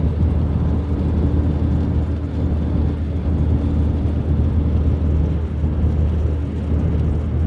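Steady cabin noise of a car driving along a paved road: a low rumble of tyres and engine, heard from inside the car.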